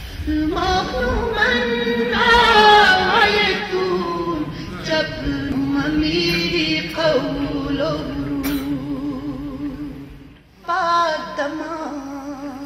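A woman singing an unaccompanied devotional lament into a microphone: slow, drawn-out notes with a wavering melody, breaking off briefly about ten seconds in before going on.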